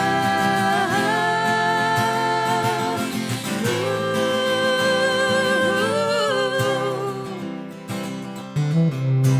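Live acoustic music: a guitar with long held melody notes over it that waver slightly. The music thins out about three-quarters through, and a new, loud guitar part starts near the end.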